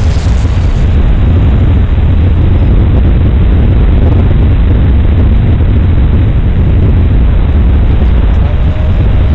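Radio-controlled Extra 330S aerobatic model airplane in flight: a loud, steady rumble and rush of engine and wind noise with no clear engine tone.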